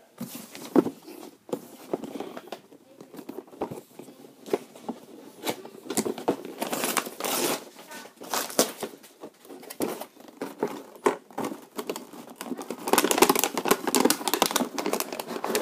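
Packaging crinkling and rustling while a small drone is unpacked and handled, with irregular clicks and knocks; the rustling is busiest and loudest near the end.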